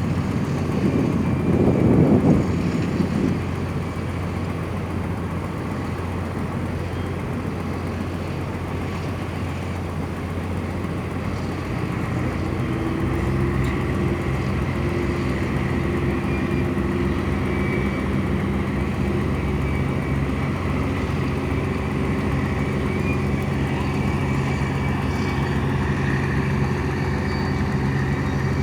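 Tugboat diesel engine running steadily with a low hum. A brief louder rush of noise comes about two seconds in, and from about twelve seconds in the engine note grows stronger and a little louder.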